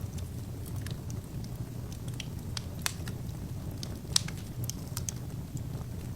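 Wood fire burning in an open fireplace: a steady low rush of flames with irregular sharp crackles and pops from the burning logs, two louder pops about three and four seconds in.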